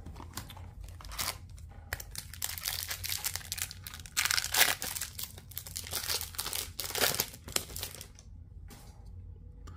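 A hockey trading-card pack's wrapper crinkling as it is torn open, with the loudest rip about four and a half seconds in. The crinkling dies down near the end.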